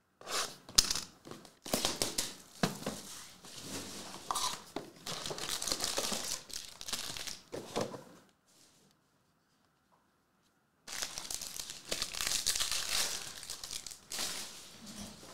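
Foil trading-card packs from a Panini Prizm hobby box crinkling and being torn open, as the packs are taken from the box and one is ripped apart. The crinkling stops for about two seconds a little past halfway, then starts again.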